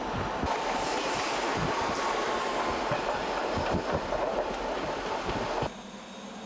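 Local passenger train heard from inside at an open window, running with a loud rattle and rapid, uneven clicking of wheels over rail joints, and a thin steady squeal above it. About six seconds in the rattle cuts off abruptly, leaving a much quieter steady hum.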